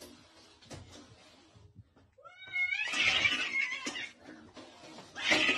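A cat yowling at its own reflection in a mirror: after a quiet start, a rising, wailing cry about two seconds in turns into a loud, harsh cry lasting about a second and a half, with another harsh cry starting near the end.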